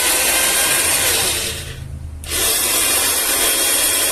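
Torrey blender motor and blade spinning at speed with a steady whir, switched off briefly about two seconds in and then on again. It runs with a freshly fitted bearing and shaft seal.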